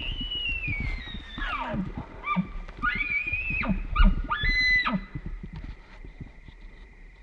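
Bull elk bugling: a high whistle that slides down about a second and a half in, then two shorter high whistled notes with low grunts underneath.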